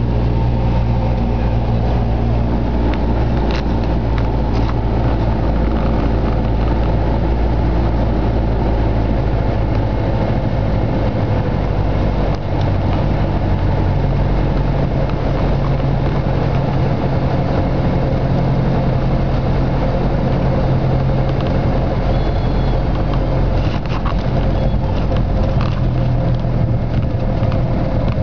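Cessna 172's piston engine and propeller running steadily, heard from inside the cockpit; the engine note changes about twelve seconds in.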